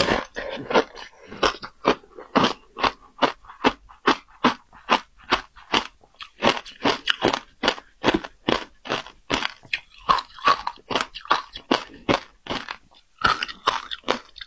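Shaved ice being bitten and chewed: rapid crisp crunches, about three to four a second, with a brief pause about six seconds in.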